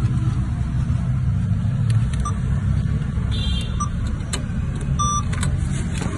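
Short electronic beeps from an ATM, a second or so apart, the last one longer, with a couple of sharp clicks, over a steady low rumble.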